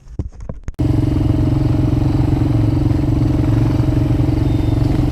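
A few faint knocks, then an abrupt cut about a second in to an ATV engine running loud and close at a steady speed, with an even, unchanging pitch.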